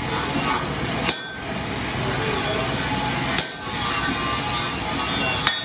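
Three separate hammer blows on hot steel at a blacksmith's anvil, a little over two seconds apart, over a steady background noise.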